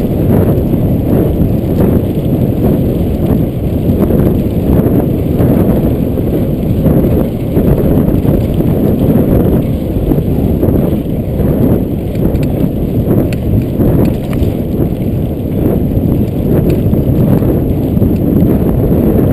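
Mountain bike riding over a rough dirt track: a steady low rumble of tyres on the ground with irregular rattles and knocks as the bike jolts over bumps.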